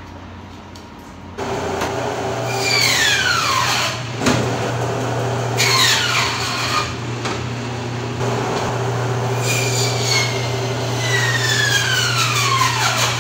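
Meat band saw running with a steady hum and cutting through bone-in pork shoulder and loin. It comes in about a second in. Three times, a whine falls steadily in pitch as the blade works through the cut.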